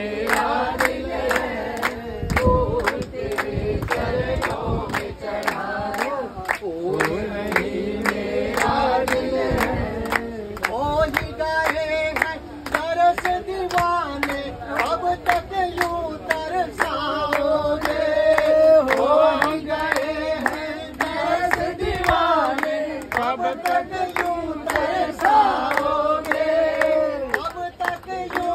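A group singing a Hindi devotional bhajan together in unison, with a man's voice leading, over steady rhythmic hand clapping.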